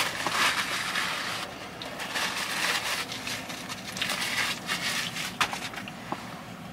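Fast-food packaging being handled close by: a rustling, crackling haze with many small sharp crackles, alongside eating noises.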